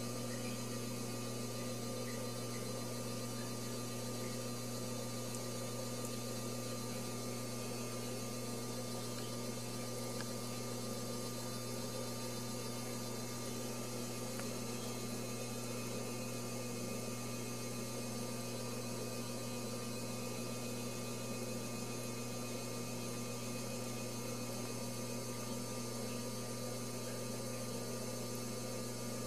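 Steady electrical hum with a faint hiss underneath, unchanging throughout, with no kitten cries.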